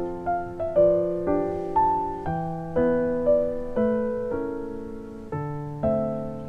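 Background music: a gentle piano melody, each note struck and left to fade, a new note or chord about every half second.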